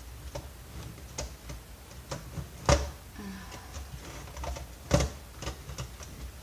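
Irregular small clicks and taps of a Torx screwdriver and plastic vacuum cleaner parts being handled during disassembly, with two louder knocks, one a little under three seconds in and one about five seconds in.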